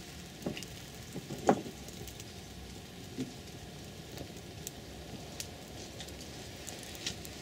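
A small wood fire of split kindling crackling in a metal fire bowl, with scattered sharp pops, the loudest about a second and a half in. Light rain patters steadily around it.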